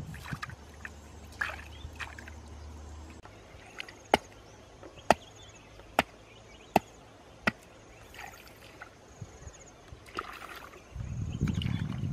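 Wading and digging with a wooden stick in a shallow muddy puddle: muddy water sloshing and splashing, heaviest near the end, with a run of five sharp knocks about a second apart in the middle.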